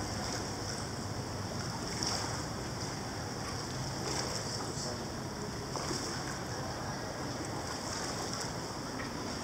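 Steady watery noise of an indoor swimming-pool hall, with a few faint knocks or splashes.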